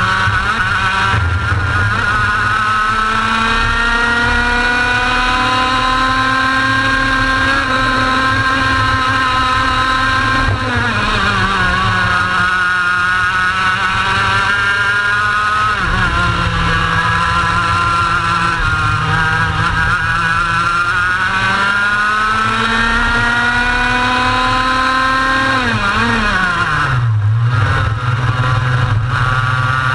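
Racing kart engine heard from on board at full race pace: its pitch climbs steadily along each straight and drops sharply when the driver lifts for a corner, about eleven, sixteen and twenty-seven seconds in, with wind rush over the microphone throughout.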